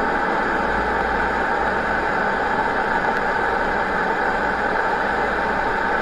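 A steady, even rushing noise over a low rumble, unbroken throughout, with no speech.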